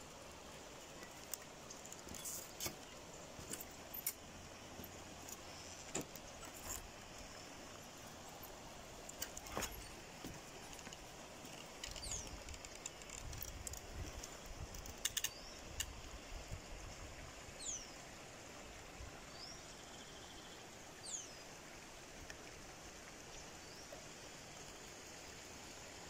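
Footsteps on a footbridge of loose wooden poles, with scattered knocks and clicks as the poles shift underfoot, over a faint steady outdoor hiss. In the second half a bird gives a few short, falling chirps.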